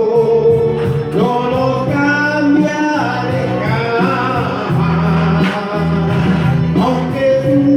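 A song with a man singing long held notes over instrumental backing.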